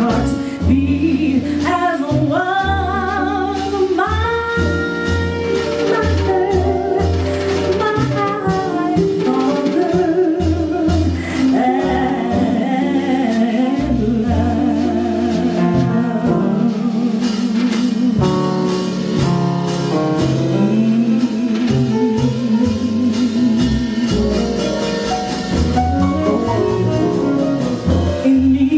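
A woman singing jazz with a wide vibrato, backed by a small live jazz band of bass, drums with cymbals and chording instruments.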